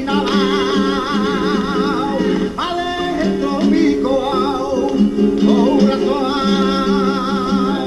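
Flamenco singing (cante) over acoustic guitar: a voice holding long ornamented notes with a wide vibrato, broken by a short pause about two and a half seconds in.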